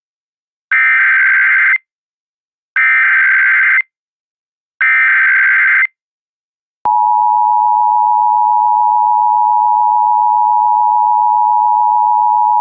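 Emergency Alert System SAME header: three identical bursts of digital data tones, each about a second long. About seven seconds in they give way to the steady two-tone EAS attention signal, which announces a Child Abduction Emergency (AMBER Alert).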